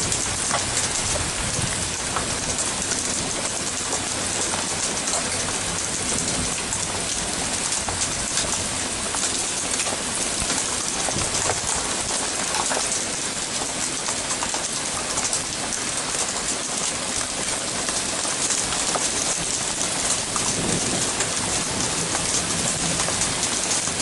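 Steady rain falling on a gravel path, an even hiss with no let-up.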